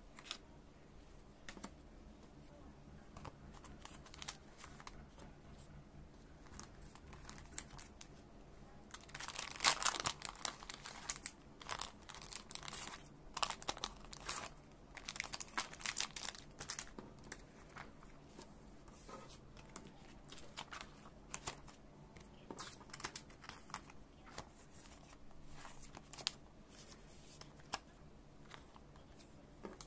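Thin clear plastic card sleeves and their plastic packet crinkling and rustling in the hands as trading cards are slid in and out. The crinkling comes in a dense, louder run about a third of the way in, with scattered small rustles and ticks before and after, over a faint steady low hum.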